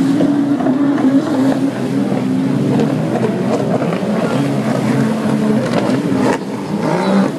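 Several racing runabout personal watercraft running flat out, their engines overlapping at slightly different pitches that rise and fall as they round the buoys. The level dips briefly about six seconds in.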